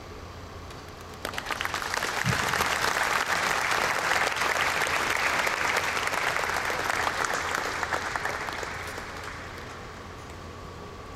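Audience applauding. The clapping starts suddenly about a second in, builds to a full round, then tapers off near the end.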